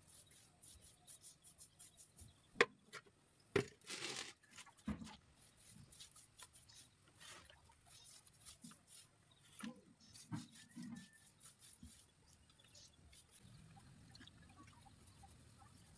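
Faint, scattered wet rubbing and dabbing of lime wash being smeared onto a wall by hand, with small taps and clicks; the sharpest is a single click a few seconds in.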